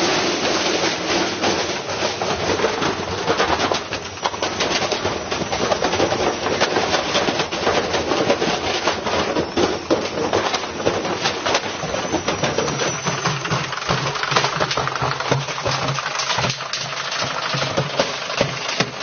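Washing machine spinning with a brick loose in its drum: a loud, continuous clatter of rapid banging and rattling as the brick hammers the drum and the machine shakes.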